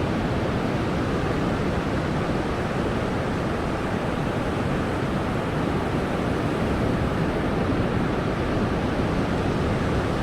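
Steady roar of ocean surf on a beach, mixed with wind, at an even level.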